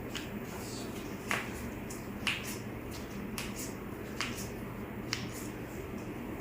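A series of about six sharp clicks, roughly one a second, over a steady low hum.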